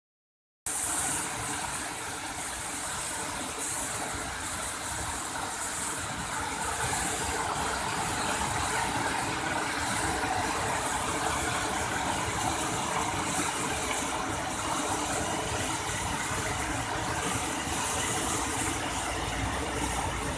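Waterfall crashing onto rocks into a pool: a steady rush of falling and churning water, starting about half a second in, with a brief click at about three and a half seconds.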